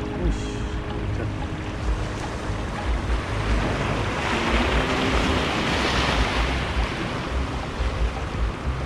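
Sea waves washing against a rocky shore, with wind buffeting the microphone; a wave washes in louder about halfway through.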